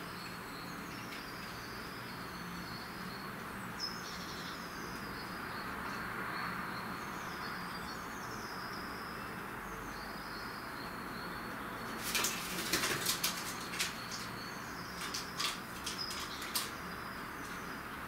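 Small birds chirping in short, high calls every second or two over a steady outdoor hum. About two-thirds of the way through, a flurry of sharp clicks and taps begins, then further scattered taps, as a feral pigeon shifts its feet and pecks on a wooden bird feeder.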